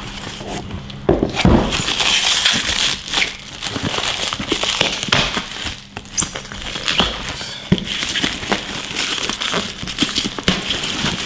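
Black plastic packaging crinkling and rustling as it is handled and pulled off cardboard boxes, with frequent short knocks and scrapes from the boxes being moved.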